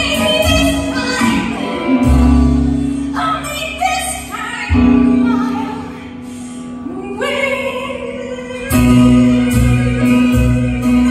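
A woman singing into a microphone over a recorded backing track, with held notes and a steady bass line beneath.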